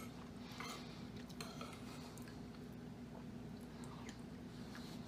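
Metal spoon scraping and clinking lightly in a small ceramic bowl of chili, a few faint scattered clicks.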